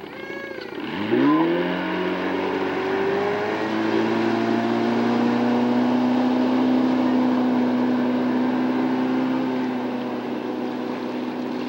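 Motorboat engine opened up hard about a second in, its pitch climbing quickly as it pulls a water-skier up out of the water. From about four seconds on it settles into a steady run at towing speed.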